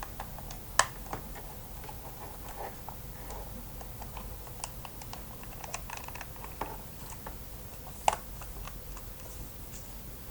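Scattered light clicks and taps of a computer mouse's plastic shell being handled and taken apart, with two louder clicks, about a second in and about eight seconds in.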